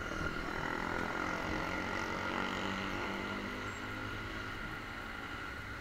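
Motorcycle engine idling steadily at a standstill: the single-cylinder engine of a 2008 Honda CBX 250 Twister.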